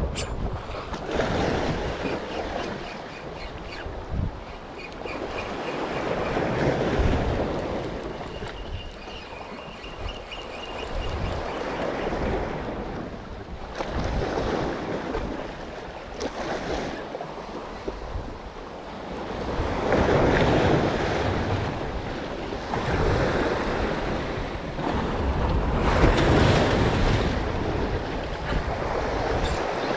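Sea waves washing onto the shore, swelling and ebbing about every six seconds, with wind buffeting the microphone.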